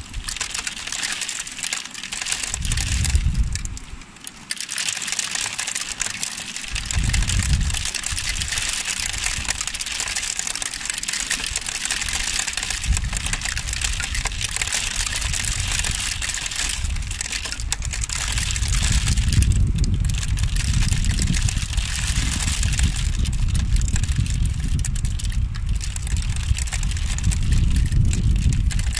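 Steady, heavy rain: a dense patter of drops. Low rumbles come and go over it, heaviest in the last third.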